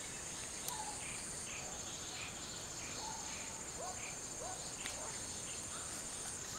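Insects droning in the swamp vegetation: a steady high-pitched whine like crickets, with short repeated chirps and a few quick rising chirps about four seconds in.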